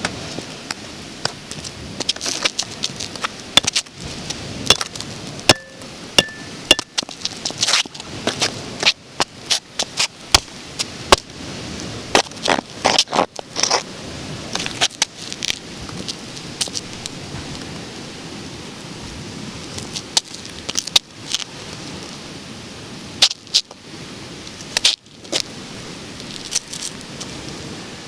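Stiletto heels of high-heeled pumps striking and scuffing on rough concrete: irregular sharp clicks and taps, thickest in the first half and in short clusters later, over a steady outdoor hiss.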